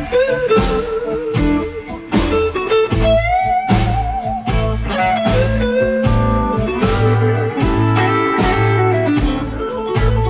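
Blues-style background music led by electric guitar with bending, wavering notes, over a bass line and a steady drum beat.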